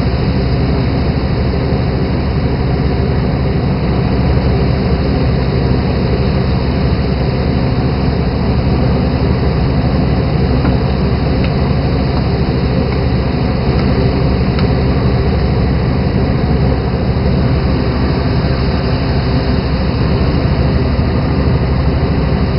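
A fishing boat's engine running steadily and loudly, a constant low drone with a hiss over it.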